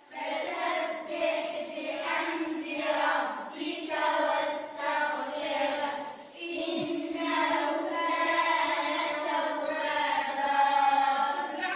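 A group of children's voices chanting together in unison in long held phrases, with a short break a little past halfway.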